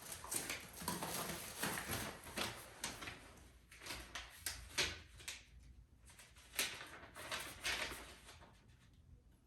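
Packaging being handled: irregular rustling and scraping of cardboard and plastic wrap as vacuum accessories are lifted out of a box, dying down near the end.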